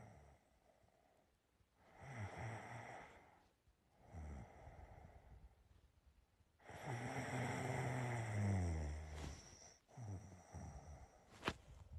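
A sleeping person snoring, with short rattling snores on the in-breaths. A little past halfway comes one long, loud snore lasting about two and a half seconds. Near the end there is a single sharp click.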